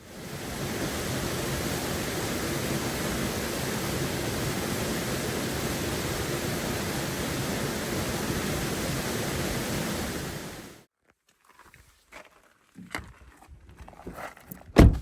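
Waterfall rushing steadily, fading in at the start and cutting off abruptly about eleven seconds in. Then come scattered footsteps on a dirt trail, with one loud thump near the end.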